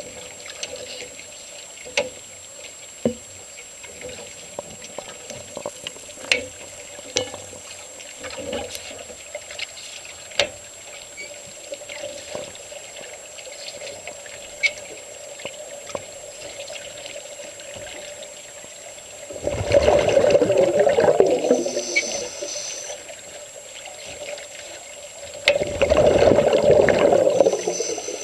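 Heard underwater through a camera housing: scattered small clicks and ticks, then two loud bubbling rushes about three seconds long, the first about two-thirds of the way through and the second near the end, from a diver exhaling through a regulator.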